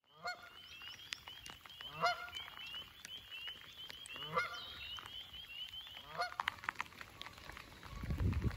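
A goose honking four times, about two seconds apart, over a steady run of small high rising peeps. A low rumble comes in near the end.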